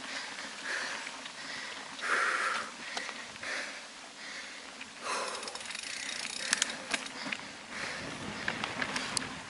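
Rhythmic heavy breathing close to the microphone, a puff about every 0.7 s, over footsteps on a dirt forest trail. Sharp clicks of twigs and gravel underfoot come more often in the second half.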